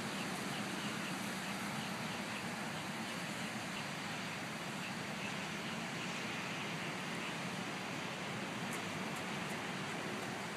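Steady outdoor background noise: an even hiss with a low hum beneath it, and a few faint clicks near the end.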